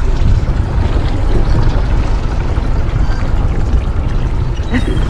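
Small fishing boat's engine running, a steady low rumble, with a few faint high gull calls over it.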